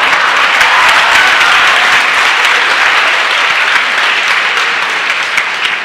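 Audience applauding in a hall, a dense steady patter of many hands that eases off near the end.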